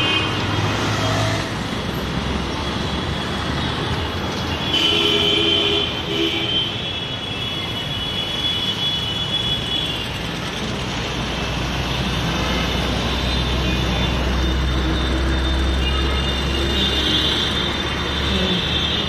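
Busy city road traffic: motor vehicles running past in a steady noise, with a deep engine rumble growing stronger past the middle and a few short pitched tones above it.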